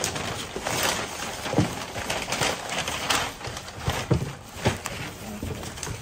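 Clear plastic bag and cardboard box rustling and crinkling as a plastic-wrapped dust bag is lifted out of a shipping box, with a few soft thumps of handling.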